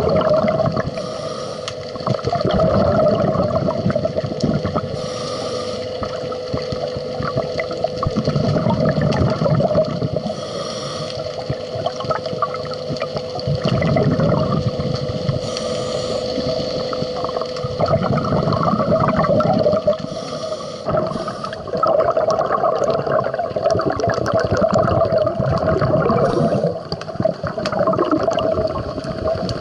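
Underwater sound of scuba diving: bursts of exhaled bubbles from a diver's regulator every four to five seconds, over a steady mechanical hum and a rising and falling gurgle of water.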